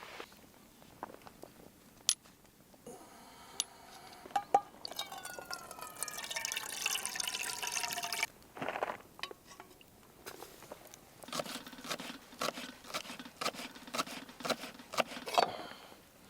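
Water poured into a pot, its pitch rising as the pot fills, for about five seconds. This is followed by a run of light clicks and knocks.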